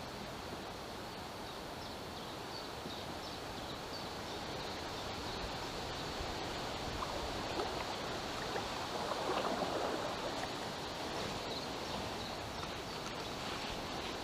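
Small river running over its bed, a steady rushing of water that swells louder for a moment about two-thirds of the way through.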